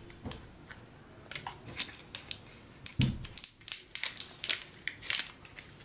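Small cardboard and paper packaging being handled by hand: irregular light clicks and short rustles, with a dull thump about three seconds in.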